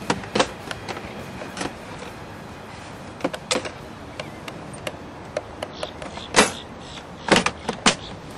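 Scattered sharp clicks and knocks, about a dozen at irregular spacing, over a steady background hiss; the loudest comes a little past the middle, with a quick cluster near the end.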